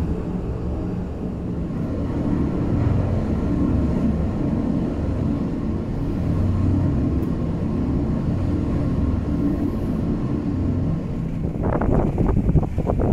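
Gale-force wind of over 30 knots buffeting the camera microphone: a loud, steady low rumble. Near the end it breaks into a rapid flurry of sharper thumps.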